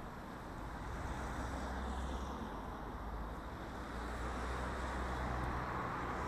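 Steady outdoor urban background noise: a low rumble of road traffic with a steady low hum running under it.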